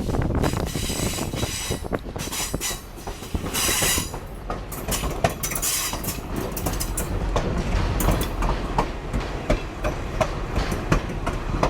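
Passenger train rolling along the track, heard from the last car: a steady low rumble with the clacking of wheels over rail joints, and stretches of high hiss or squeal in the first few seconds.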